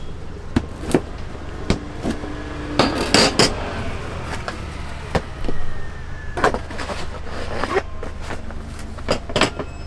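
Irregular knocks and clinks of kitchen work in a pizza food truck, utensils and pans striking hard surfaces, with a denser clatter about three seconds in, over a steady low hum.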